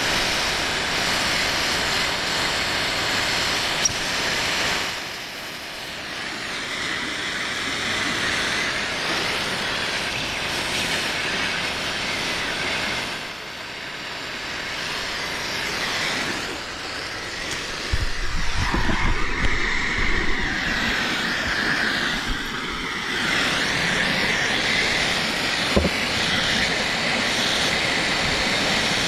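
Handheld gas torch burning with a steady hiss, briefly quieter a few times, with a few low knocks partway through.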